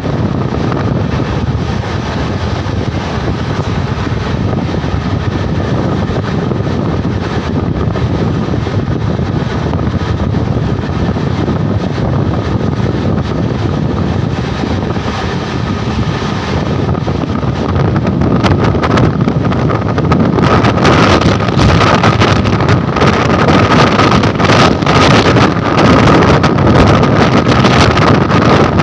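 Wind buffeting the microphone of a phone held out of a moving train's window, over the steady running noise of the train, with a faint steady high whine. The buffeting grows louder and choppier about two-thirds of the way through.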